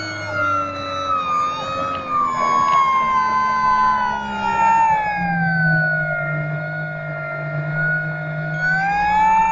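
Electric motor and propeller of an FMS Cessna 182 RC model plane whining in flight, heard from the plane's onboard camera with rushing air behind it. The whine slides slowly down in pitch as the throttle eases off, then rises a little near the end.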